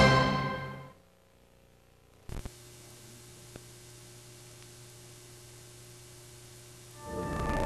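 Closing music fading out in the first second, then a short click and a faint steady hiss with a low hum, typical of an old videotape between programmes. Another piece of music starts near the end.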